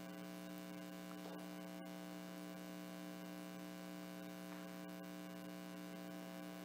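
Steady electrical mains hum, a low buzz made of several steady tones, in an otherwise quiet room. A faint click comes about two seconds in.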